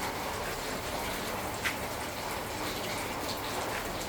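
Steady hiss of light rain falling, with a single small click a little under two seconds in.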